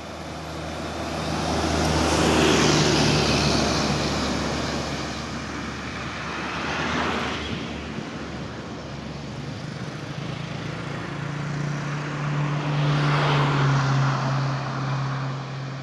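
Buses passing close by on the road, one after another: a low engine drone and tyre rush that swell and fade, loudest about two to three seconds in and again near the end.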